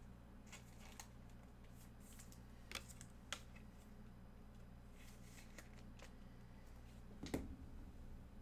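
Trading cards being handled and flipped through: faint scattered clicks and slides, the loudest near the end, over a low steady hum.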